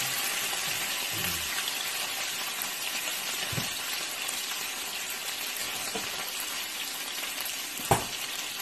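Chicken pieces sizzling steadily in hot oil in a frying pan, with a sharp knock near the end.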